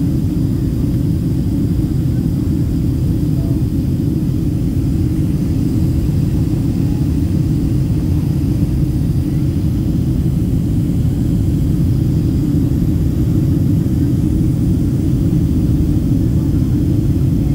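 Cabin noise of a Boeing 767-300 jet airliner in flight, heard from a window seat: engines and rushing air blending into a steady, deep rumble that does not change.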